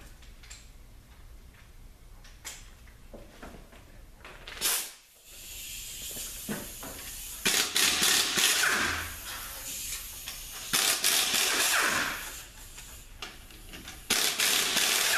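Power ratchet running bolts out of a 42RLE transmission in three bursts of one to two and a half seconds, the bolts held with thread locker and coming out a little tight. Lighter handling noise from the tool and parts comes before the bursts.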